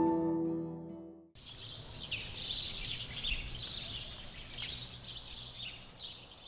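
Soft background music with a struck note that fades out, then, after a sudden cut about a second and a half in, many small birds chirping rapidly over a faint steady outdoor hiss.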